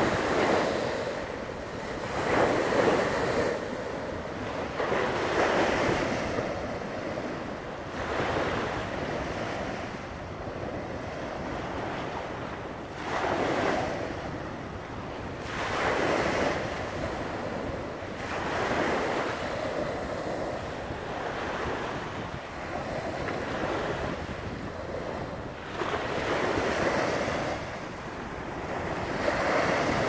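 Wind-driven waves breaking and washing up a sandy river shore. A surge of surf comes about every three seconds over a steady wash of water, with wind buffeting the microphone.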